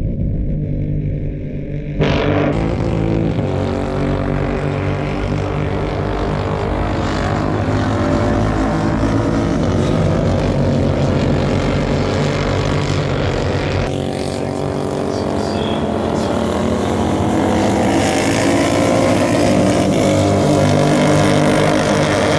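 A pack of Royal Enfield Continental GT 650 race motorcycles with 648 cc parallel-twin engines running hard at high revs on the circuit. The engine note is loud and steady, with a sudden surge about two seconds in.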